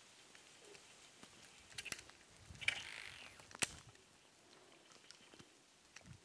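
Faint plops and ticks of a topwater frog lure being twitched across still water, with a brief splashy rustle about two and a half seconds in and a sharp tick about a second later.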